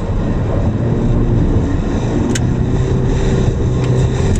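Toyota Corolla's engine and tyre noise heard from inside the cabin while driving at steady speed, a steady low hum. A single short click about halfway through.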